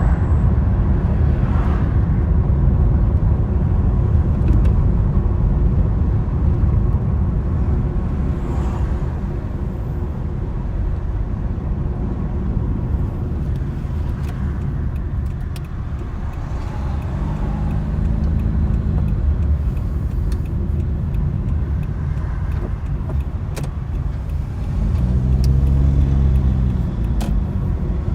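A car on the move: a steady low rumble of road and wind noise. Twice, about two-thirds of the way through and again near the end, an engine note rises and falls, the second time louder.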